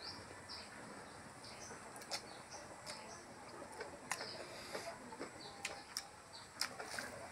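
Faint mouth sounds of people eating rice and pork curry by hand: chewing and lip smacks, with a sharp click now and then. Short, high bird chirps repeat through the background.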